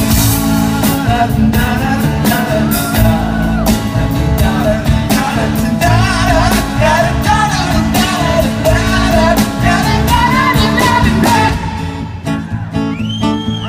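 Live rock band playing an instrumental break: drums, bass and guitar under a wavering lead melody. About eleven seconds in, the drums stop and the music thins out into a softer passage with gliding high notes.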